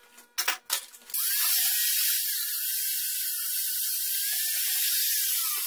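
Small abrasive cut-off grinder cutting through steel all-thread where it is welded to a square tube. A few handling clanks come first; about a second in the tool starts and runs as a steady, high, hissing whine, its pitch sagging a little toward the end as it cuts.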